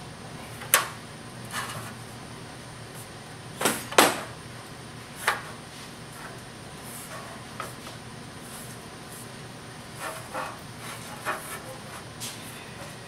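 Thin 16-gauge cold-rolled sheet steel being handled and fitted on a perforated steel welding table: sharp metallic taps and knocks, the loudest a pair about four seconds in, with softer ones around ten to twelve seconds, over a low steady hum.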